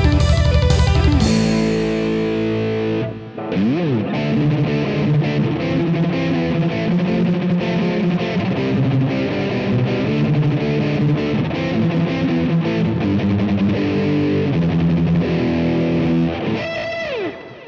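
Distorted electric guitar playing a fast sweep-picking and tapping exercise: after a second of chugging chords and a brief break about three seconds in, it runs through rapid arpeggiated note runs. Near the end the pitch slides down in a dive.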